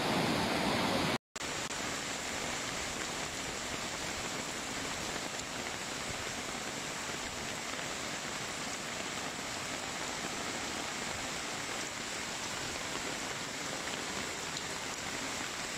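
Steady rushing noise of a flash-flood torrent of muddy water pouring through streets, with rain mixed in. The sound cuts out for an instant about a second in, then the rush carries on unchanged.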